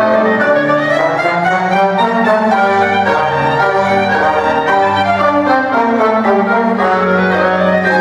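Small chamber ensemble of violin, clarinet, trombone, piano and percussion playing silent-film music, the violin carrying a melody that rises and falls over held low notes.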